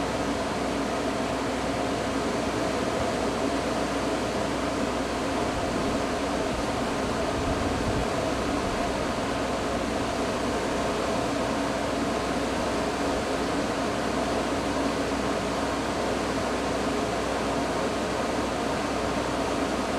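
A steady machine-like hum with a few held tones over an even hiss, unchanging throughout.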